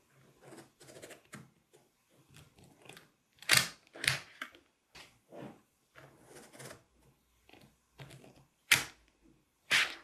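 Small magnetic balls clicking and snapping together as rows of them are handled on a plastic sheet and pressed into place, in a string of light, uneven clicks. Three louder snaps come about three and a half seconds in, near nine seconds, and just before the end.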